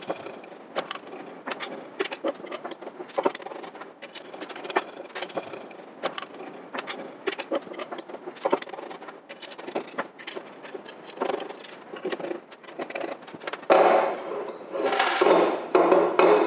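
Small metal clicks, clinks and taps of screws, parts and tools being handled while the frame of a CNC 3018 mini milling machine is put together, scattered and irregular. Near the end a louder, pitched sound comes in over them.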